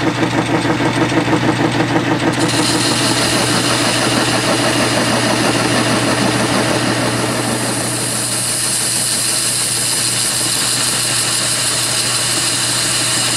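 Metal lathe running while facing the end of a cast iron bar: a steady hum, with a rhythmic pulsing about three or four times a second that the machinist puts down to the steady rest chattering on a rough-turned surface. A high hiss from the cutting tool comes in about two seconds in.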